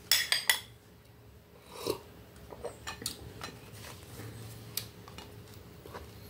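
A spoon clicking sharply against a plastic mug four or five times in quick succession, then softer, scattered taps of tableware.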